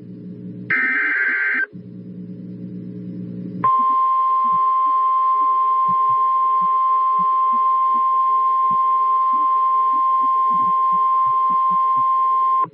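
Emergency Alert System tones: a warbling SAME digital header burst about a second long, a low hum, then from about four seconds in a single steady attention tone of roughly 1 kHz, typical of the NOAA Weather Radio 1050 Hz alert tone, held to the end.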